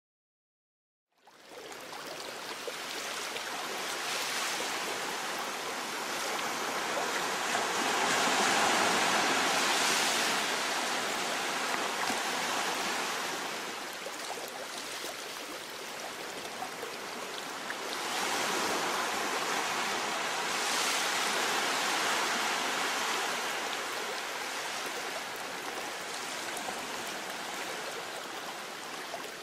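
Ocean surf breaking and washing over a rocky boulder beach: a steady rushing that starts about a second in and twice swells into louder surges before easing back.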